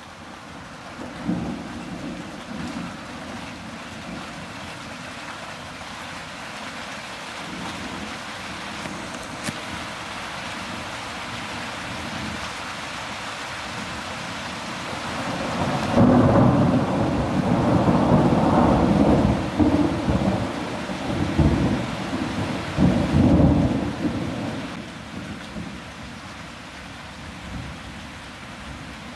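Steady rain hiss, with faint rumbles of thunder in the first few seconds. About halfway through, a loud roll of thunder from a nearby lightning strike builds and rumbles in several swells for about eight seconds before dying away.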